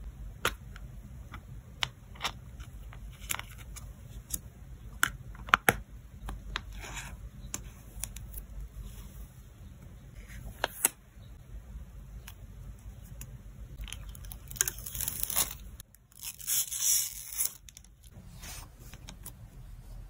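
A photocard being handled in clear plastic sleeves: plastic rustling and rubbing as the card slides in, with many sharp clicks of long fingernails against the plastic, and two longer rustling scrapes near the end.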